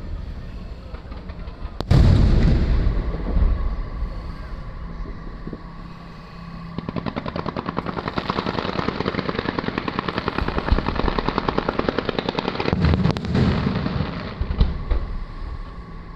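Aerial fireworks: a heavy shell burst about two seconds in, then a long, rapid string of sharp crackling pops, like a machine gun, followed by more booming bursts near the end.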